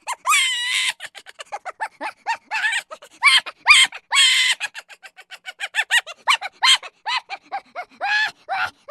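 High-pitched squeaky chattering comedy sound effect: a rapid run of short chirp-like calls, each rising and falling in pitch, broken by a few longer squeals.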